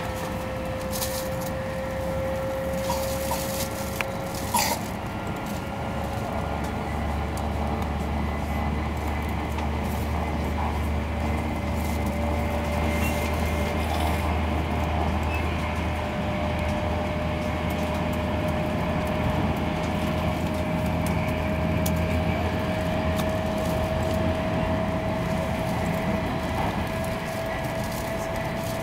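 E2-series Shinkansen heard from inside the passenger cabin while running: a steady low rumble, with a whine that rises slowly in pitch as the train gathers speed. A few light clicks come in the first five seconds.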